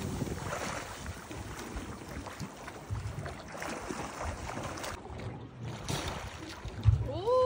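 Seawater sloshing and splashing around a boat and a swimmer, with wind on the microphone and occasional low knocks. Near the end comes a short voice call that bends up and down in pitch.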